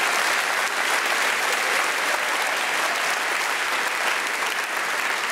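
Audience applauding steadily: many hands clapping at once, filling a large hall.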